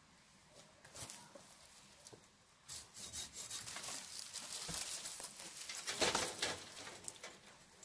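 A small tree, just sawn through, being pushed over and falling into dry brush: its branches and twigs rustle and crackle against the undergrowth, starting about three seconds in and loudest around six seconds in.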